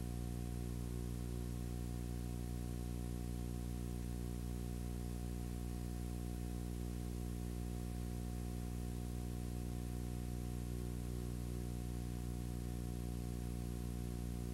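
Steady electrical hum with a stack of overtones over a faint hiss, unchanging throughout: mains hum on the soundtrack of a black, blank stretch of a VHS transfer.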